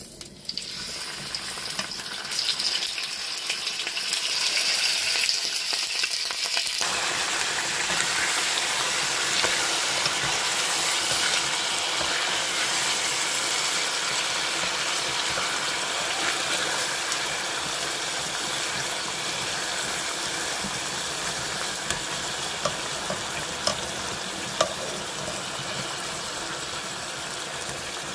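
Raw chicken pieces sizzling in hot olive oil in a frying pan: a steady frying hiss that starts as the meat goes into the oil, with a few sharp clicks near the end.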